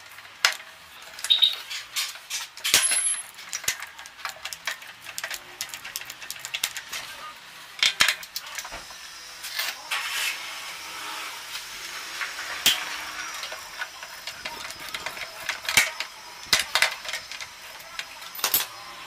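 Irregular metallic clicks and clinks of a spanner and other hand tools being handled against a motorcycle engine's bare aluminium casing and nuts.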